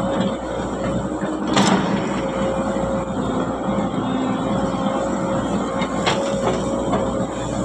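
Heavy diesel earthmoving machinery running steadily, with a sharp clank about a second and a half in and another near six seconds.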